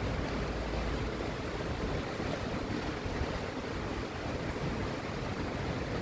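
Steady rain falling, an even hiss with no thunderclap.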